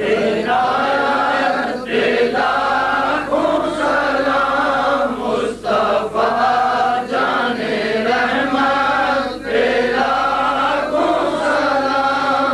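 Men's voices chanting a devotional naat together in long sung phrases, with brief breaks between lines.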